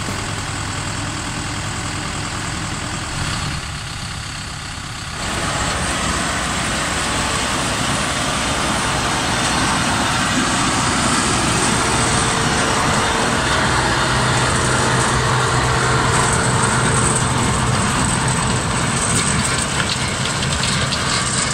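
Mahindra Erkunt 110 hp tractor's diesel engine running under load, pulling a rotary tiller through dry soil, with the steady churning of the tiller mixed in; the sound steps up in loudness about five seconds in.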